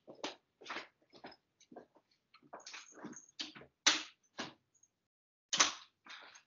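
A house cat being put out of a room: a run of short knocks, rustles and brief animal cries, with the loudest knocks about four and five and a half seconds in.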